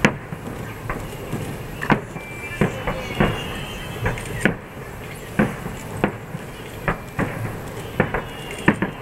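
Aerial firework shells bursting in a rapid, uneven series of sharp booms, about one to two a second, each with a short echoing tail.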